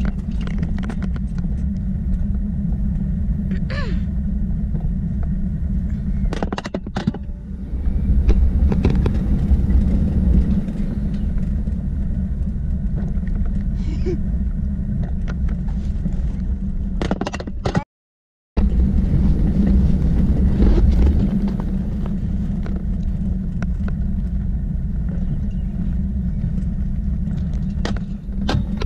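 Summer toboggan sled running fast down a metal trough track: a steady low rumble of the sled on the track, with a few sharp clicks and rattles along the way. The sound cuts out for about half a second a little past the middle.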